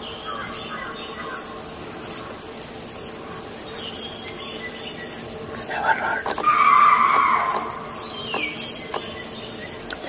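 Steady insect chirring. About six seconds in, a loud distress cry from an animal lasting about a second and a half: the cry of prey seized by a predator.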